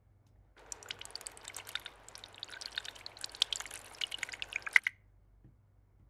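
Water-pouring sound effect: liquid splashing and trickling with many small drips. It starts about half a second in and cuts off abruptly after about four seconds. It is a water-flow effect standing in for oil being poured.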